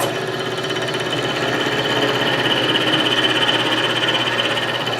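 Milling machine running with a 1/2-inch end mill in the spindle: a steady mechanical hum and whine.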